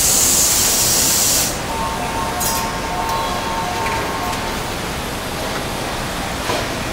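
Engine assembly line machinery: a loud hiss of compressed air for about the first second and a half, then steady plant noise with a faint steady whine for a couple of seconds and a single clack near the end.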